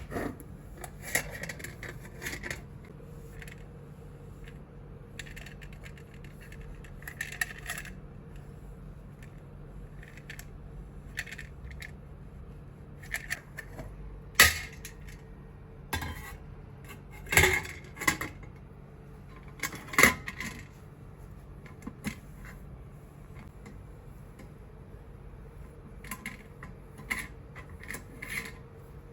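Brass samovar parts clinking and knocking together as they are handled, in scattered sharp metallic taps with a short ring. Three louder knocks come near the middle, over a faint steady hum.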